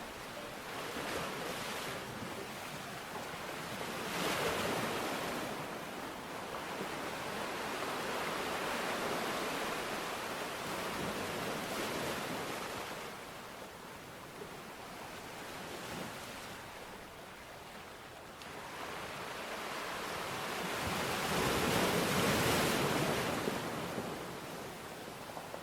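Sea waves breaking and washing up the shore: a steady rush of surf that swells with a breaking wave about four seconds in and again near the end, easing off in between.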